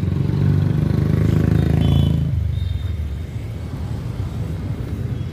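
A motor vehicle's engine rumbles loudly for about two seconds, then drops away to a steadier, quieter road rumble.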